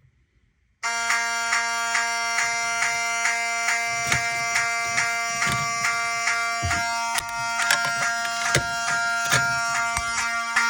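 Fire alarm system going into alarm after a pull station is pulled: several alarm horns start together under a second in and keep up a loud, steady buzzing blare of many tones at once, with a slight pulse about twice a second.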